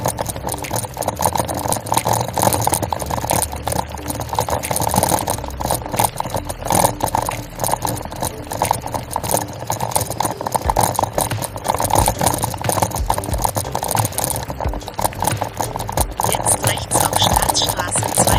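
Bicycle tyres rolling over a gravel track, a steady crunching rumble with rattling from the bike, mixed with wind noise.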